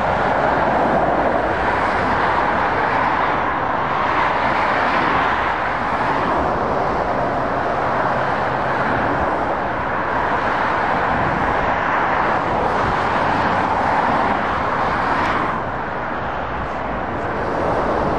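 Steady motorway traffic: lorries and cars passing, a continuous tyre and engine noise that swells and eases a little as each vehicle goes by, dipping slightly near the end.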